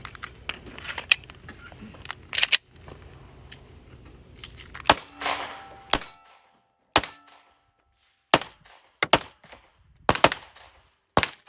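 Glock pistol being fired: a string of about a dozen sharp shots at an uneven pace.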